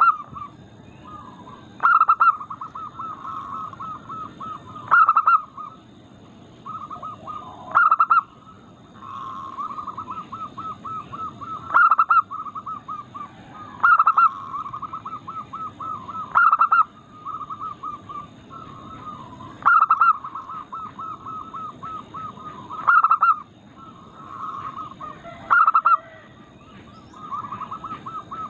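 Zebra dove (perkutut) cooing: a loud coo about every three seconds, with fast runs of softer stuttering notes between them.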